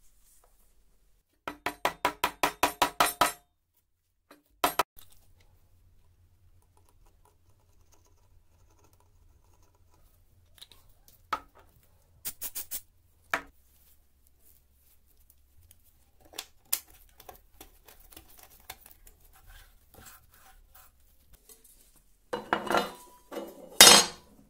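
Workbench handling sounds. A quick run of about ten clicks grows louder, then comes one sharp click, and about halfway through there are several very short hisses from an aerosol spray can. Near the end come loud knocks and clatter as a wooden strip and a metal speed square are set down on a plywood base.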